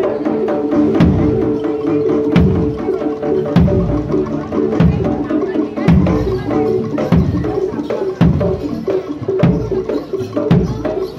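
Live jaranan gamelan-style ensemble music: sharp hand-drum strokes and clicks over sustained metallic tones, with a deep beat about every 1.2 seconds.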